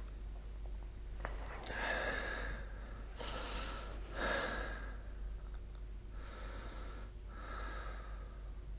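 A sleeping person breathing heavily and noisily, with five rasping breaths in and out, the last four in pairs, short of a full snore.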